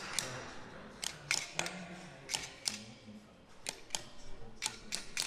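About a dozen sharp metal clicks and taps at irregular intervals, from circlip pliers and a circlip being worked into a flail topper's bearing hub.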